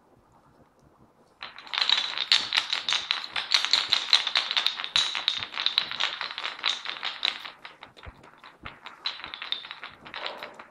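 Rapid metallic clicking and rattling as a toy is put into a parrot's cage, with a faint ringing tone running through it. It starts about a second and a half in, stays dense for about six seconds, then thins to scattered clicks.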